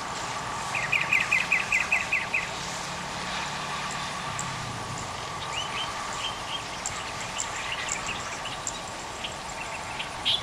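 Birds chirping: a quick run of about nine chirps about a second in, then scattered single chirps. Under them runs a steady hum and background noise.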